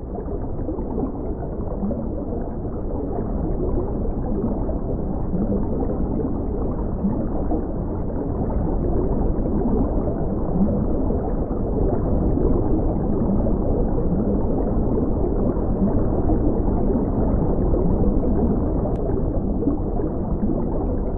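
Muffled underwater ambience: a steady low water rush with scattered bubbles, growing slightly louder.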